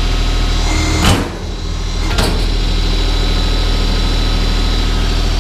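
Diesel compact tractor engine idling steadily, with a loud clunk about a second in and a sharper knock about two seconds later.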